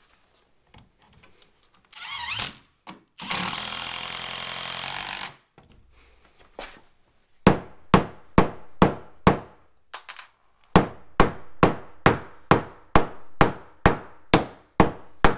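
A power drill drives a toe screw into the framing, with a short burst and then a steady run of about two seconds. It is followed by a string of hammer blows on wood, about two a second, with a brief pause partway through.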